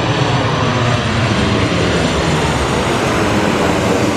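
Boeing 737-800 jetliner on landing approach passing by: a loud, steady jet engine rush with a low rumble underneath, easing slightly near the end.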